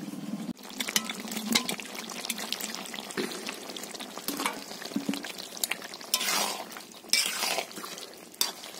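A spoon stirring thick, sticky jujube-and-mango pickle in a pan on the heat, with repeated clicks and scrapes of the spoon against the pan over a light sizzle of the syrup.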